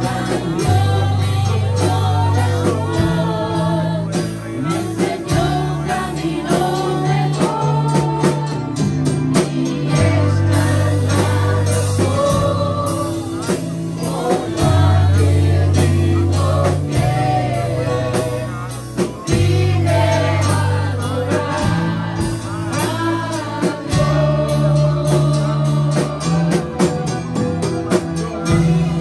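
Live gospel worship music: women's voices singing over a band of guitars, bass and drum kit, the bass holding long notes that change every second or two.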